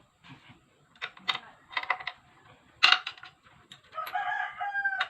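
Sharp metallic clicks and clinks from engine parts and tools being handled during an engine assembly, the loudest about three seconds in. A rooster crows near the end.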